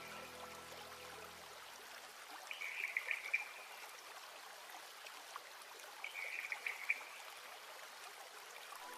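Background track's soft trickling-water ambience, with a brief bright shimmer about every three and a half seconds, twice; its music drops out early on and comes back at the very end.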